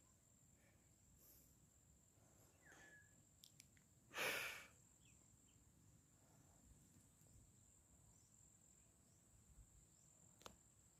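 Near silence with a faint, steady, high insect trill, typical of crickets, running throughout. About four seconds in there is one short burst of noise.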